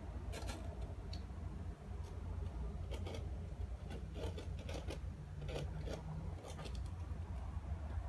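Dwarf hamster's claws scratching and scrabbling on the maze walls as it climbs and crawls: irregular light clicks and scrapes over a low steady hum.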